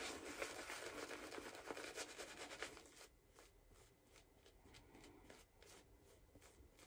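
PAA Amber Aerolite synthetic shaving brush working lather over a face: a soft, scratchy swishing of bristles through the lather. It drops to near silence about three seconds in, leaving only faint strokes.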